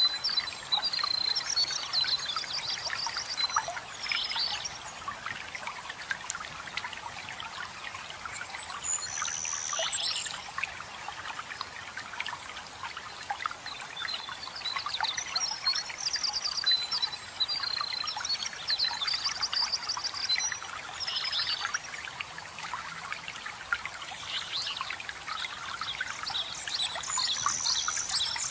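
Waterfall water splashing and trickling steadily, with a songbird singing short, rapid trilled phrases several times over it.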